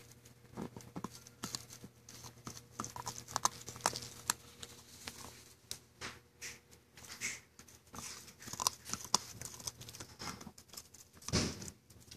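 Golden Retriever puppy chewing and gnawing on a plastic toothbrush: irregular soft clicks and crunches of teeth on the brush, with one louder thump near the end.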